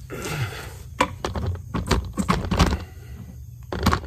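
A small metal tool scraping, picking and clicking irregularly against a metal part, digging out old felt that has hardened and is disintegrating.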